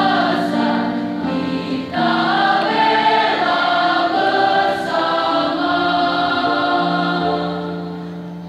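Mixed school choir singing in several-part harmony with electronic keyboard accompaniment, holding long notes; the sound fades over the last couple of seconds.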